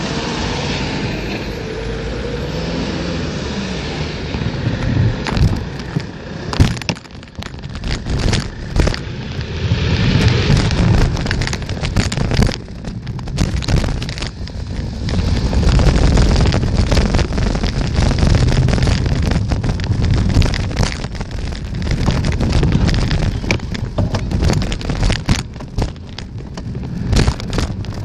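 Wind buffeting the microphone of a moving bicycle ride: a heavy low rumble with many sharp knocks and rattles, growing louder from about ten seconds in.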